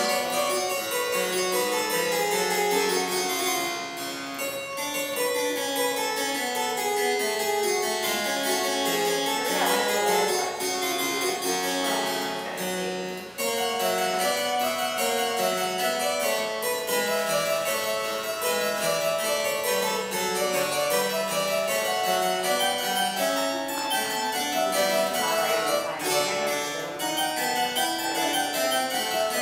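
Bentside spinet, a small wing-shaped harpsichord-family keyboard whose strings are plucked, played in a continuous stream of short notes, with a brief pause about thirteen seconds in.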